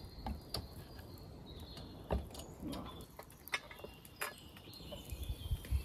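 A few light metal clinks and knocks as a lid lifter hooks and raises the lid of a cast-iron Dutch oven, with birds chirping faintly in the background.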